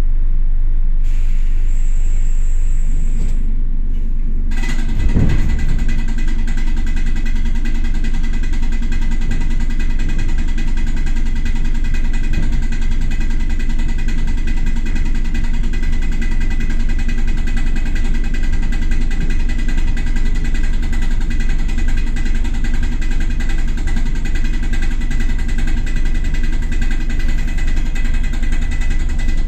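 ER2 electric train running: a steady rumble with a few held tones from its machinery. About four and a half seconds in, the noise suddenly grows fuller and hissier, with a short thump, and it then stays steady.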